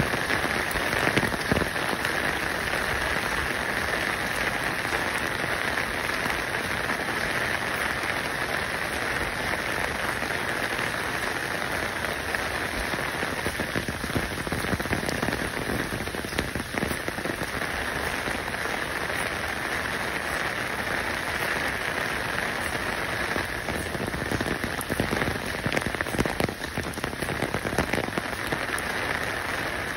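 Steady rain: an even, dense patter of fine drops.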